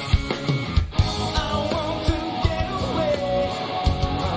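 Rock band playing: distorted electric guitar and a drum kit with regular hits, and a man singing over them.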